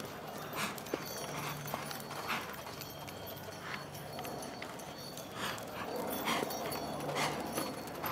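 Hoofbeats of a Chilean horse working through a reining pattern: irregular, unevenly spaced hoof strikes on the arena ground.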